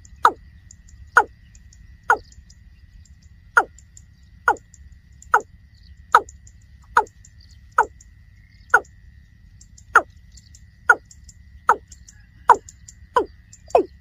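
Water cock calling: a loud, hollow note repeated about once a second, each one dropping quickly in pitch, the calls coming faster near the end.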